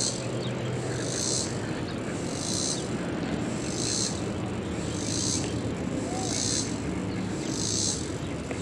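An insect calling in a steady rhythm of high, buzzy pulses, one about every second and a quarter, over a low steady rumble.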